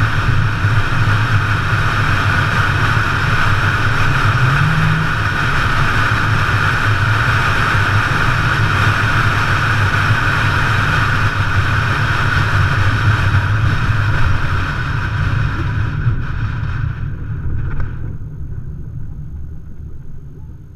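A vehicle driving on a dirt road: a steady low engine hum under loud road and rattle noise, fading away over the last few seconds.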